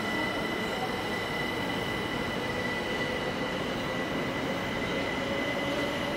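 Electric multiple-unit passenger train moving along the platform: steady rumble and rail noise with a high whine, and one tone slowly rising in pitch as it gathers speed.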